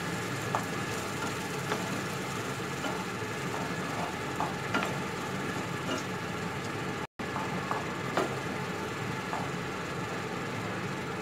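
Onion, capsicum and green chilli sizzling in oil and sauces in a nonstick frying pan, stirred with a wooden spatula that gives occasional light taps and scrapes against the pan. The sound drops out for an instant about seven seconds in.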